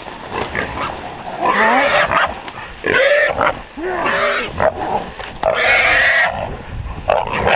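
A hog held by catch dogs squealing loudly, about five long squeals in a row, some bending up and down in pitch.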